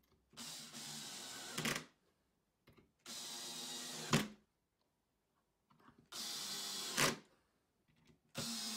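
Power drill driving screws into plywood: four short runs of about a second each with pauses between, each ending in a brief louder spike as the screw head pulls flush, the last starting near the end.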